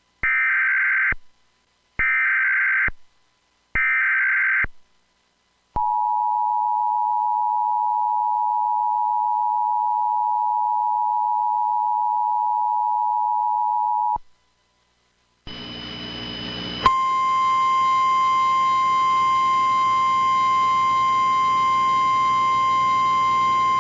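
Emergency Alert System broadcast tones: three short screeching SAME data header bursts, then the dual-tone attention signal (853 and 960 Hz together) held for about eight seconds before cutting off. After a brief pause a background hum comes in and a single steady alert tone starts and keeps sounding.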